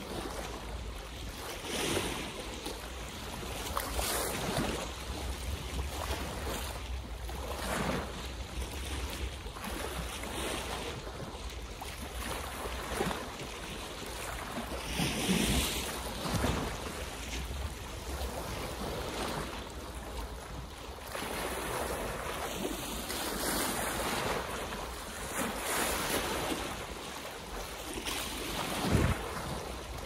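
Small waves splashing, one swell every couple of seconds, with wind rumbling on the microphone.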